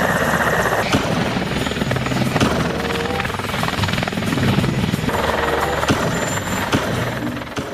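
Helicopter sound: a rapid, steady chopping of rotor blades over engine noise, starting abruptly and stopping near the end.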